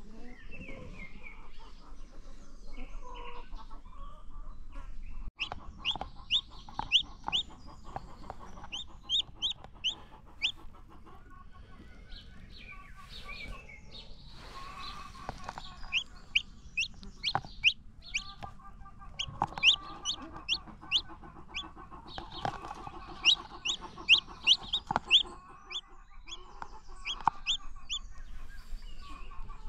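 Newly hatched chicks peeping in quick runs of short, high, falling notes, with a broody hen's lower clucking underneath.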